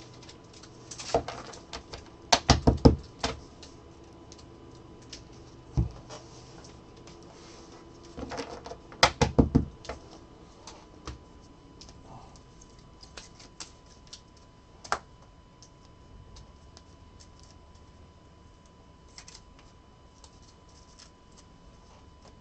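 A tall stack of trading cards squared up by hand and tapped on a tabletop, making clusters of sharp clicks. There are two bursts of rapid taps a few seconds apart, then scattered single clicks as cards are set down on the table.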